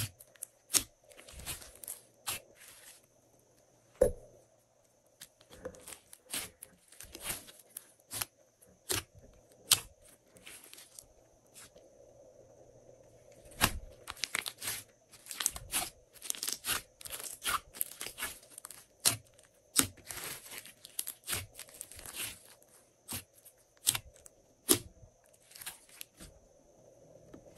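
Glossy slime worked by hand, stretched, folded and pressed flat: a string of short sticky crackles and pops as air pockets break. They come sparsely at first, drop off briefly about halfway through, then come thick and fast.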